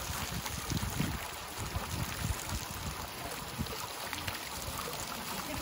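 Water from a town-square fountain's spout pouring steadily into a stone basin, an even splashing.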